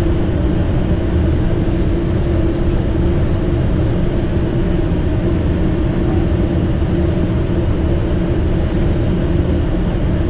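Steady drone of a fishing boat's engine running, with a constant hum over a low rumble.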